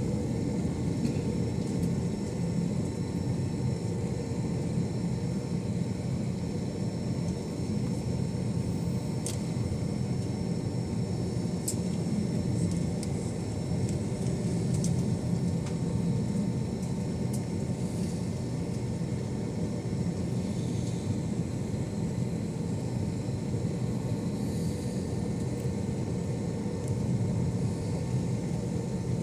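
Cabin noise of an Airbus A321 taxiing: a steady low rumble from the jet engines at taxi power, with a faint steady high whine above it.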